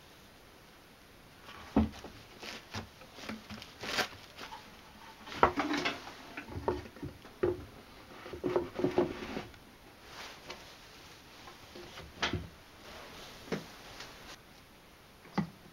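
Scattered knocks, taps and light handling noises as wooden parts of a homemade disc sander are fitted by hand: a sandpaper disc pressed onto its plywood platen and the wooden work table set in place. The noises begin after a short quiet, with sharper knocks about two and five and a half seconds in.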